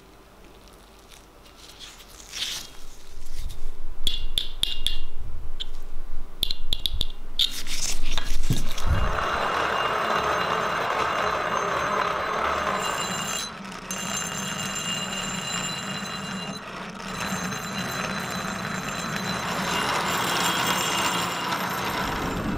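Rusty steel axe head being ground on a hand-cranked grinding wheel: a steady, loud grinding rasp from about nine seconds in, dipping briefly twice. Before it, a few short metallic scrapes and clinks.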